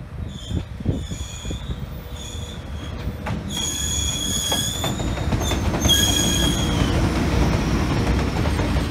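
JR Freight EH500 electric locomotive and its container wagons passing close by. The rumble builds to its loudest about six seconds in, while the wheels give off short high-pitched squeals that come and go over the first seven seconds.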